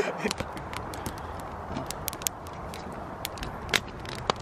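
Footsteps on a dry dirt and forest-litter path: scattered sharp crunches and clicks, two or three a second at uneven spacing, over a low steady rumble from the moving microphone.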